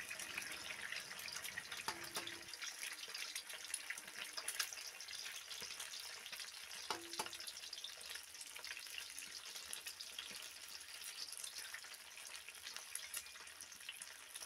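Eggs frying in hot oil in a kadai: a faint, steady sizzle with fine crackling, and two brief soft knocks about five seconds apart.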